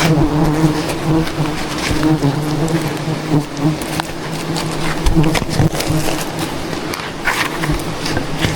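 Dense buzzing of a swarm of wild honeybees, a steady low drone with scattered sharp clicks and knocks over it.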